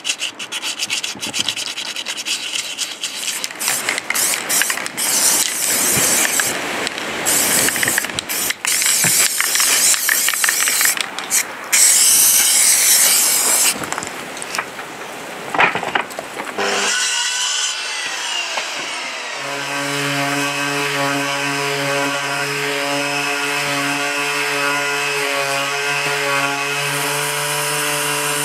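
Abrasive rubbing and scraping by hand on the red-painted steel blades of an old post hole digger, with a few knocks. About 17 seconds in, a Makita random orbital sander starts up and runs with a steady hum and whine as it sands a wooden digger handle.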